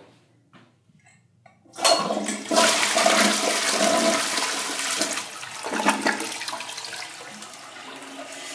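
Crane Plumbing Rexmont toilet flushing. A few faint clicks come first. About two seconds in, water rushes suddenly and loudly down the bowl, then eases off into a steadier, quieter run of water near the end.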